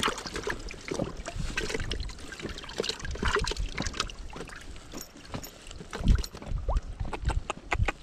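Water splashing and trickling against a fishing kayak, with irregular clicks and knocks and a few dull thumps about six to seven and a half seconds in.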